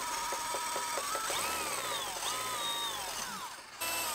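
Cordless hand drill running counterclockwise, a left-hand drill bit grinding against a hardened steel screw that it barely cuts. The motor's whine repeatedly drops in pitch and recovers, with a rapid clicking in the first second.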